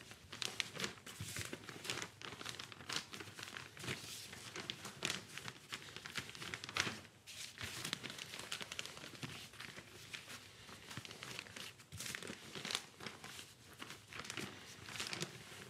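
Clear plastic sheet crinkling and rustling irregularly as gloved hands fold it over a damp, binder-mixed pyrotechnic powder and press down on it.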